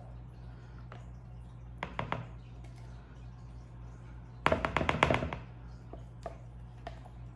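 A plastic pitcher knocking against the rim of a mixing bowl, a few soft taps and then a rapid run of knocks lasting under a second, as thick cold process soap batter is shaken out. A steady low electrical hum runs underneath.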